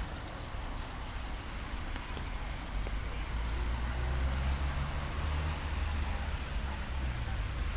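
A motor vehicle's engine running close by, its low hum growing louder about three seconds in, over the steady hiss of rain and street traffic.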